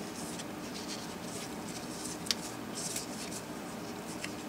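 Faint scratching, rustling and small clicks of gloved hands working wires and butt connectors, with one sharper click about two seconds in.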